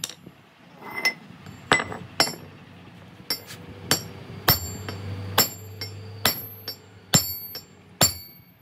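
A hammer striking steel about a dozen times at an uneven pace, roughly two blows a second, each blow ringing briefly. A low hum comes in midway and lasts about two seconds.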